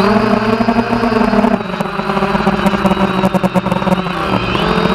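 Quadcopter's electric motors and propellers whining steadily, heard close up from the drone's own onboard camera, a little quieter after about a second and a half.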